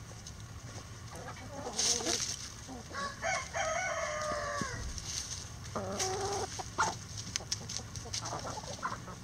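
Chickens clucking, with a rooster crowing once about three seconds in: a long call that falls away at its end. A few short sharp clicks come later.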